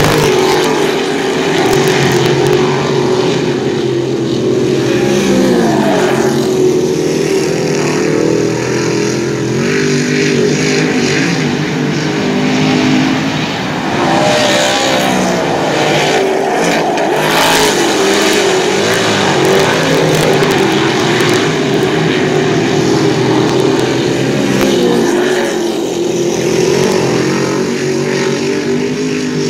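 A field of dirt-track modified race cars running laps together, their engines loud and continuous, rising and falling in pitch as the cars accelerate and ease off.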